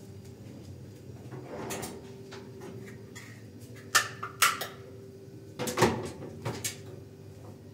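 A few sharp knocks and clatters, some in quick pairs, over a low steady hum.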